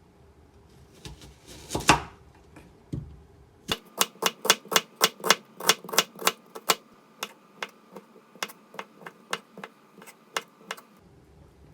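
Typing on a keyboard: a run of sharp, uneven key clicks, roughly three to four a second, starting about four seconds in and stopping near the end. A single louder knock comes about two seconds in.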